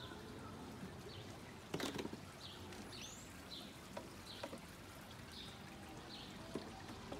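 Faint garden ambience: short high chirps repeating every half second or so over a low steady background, with one knock just before two seconds in.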